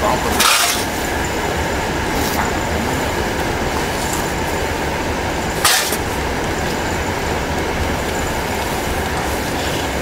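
Continuous carbonization furnace machinery running with a steady, even mechanical noise. Two brief scraping or rushing noises break through, about half a second in and again near six seconds, as charcoal powder is scooped with a steel scoop and tipped into a woven sack.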